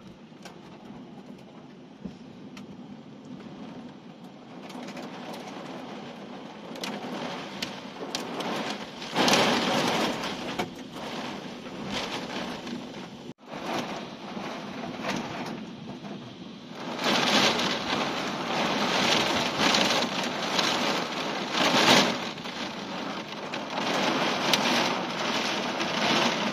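Heavy thunderstorm downpour, rain pouring down hard. It builds up and is loudest in the second half, with a momentary break about halfway through.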